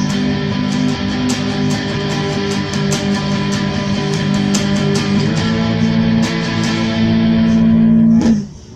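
Guitar-led band music: sustained chords over a steady run of sharp hits, cutting off suddenly near the end.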